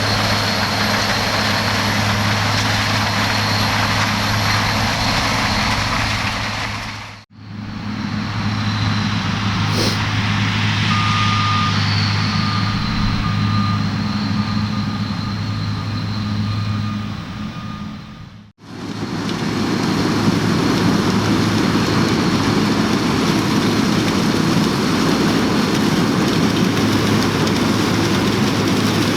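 Diesel harvest machinery working steadily: a combine harvester threshing maize or the tractors hauling its grain, a continuous engine hum. The sound breaks off abruptly twice as the shot changes. A short steady beep is heard about eleven seconds in.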